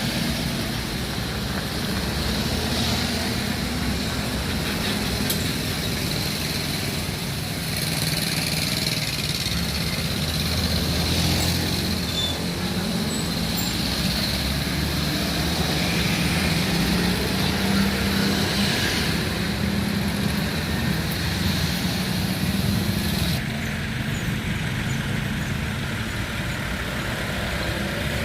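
Road traffic going by: trucks and cars passing with their engines running, a steady mix without pauses.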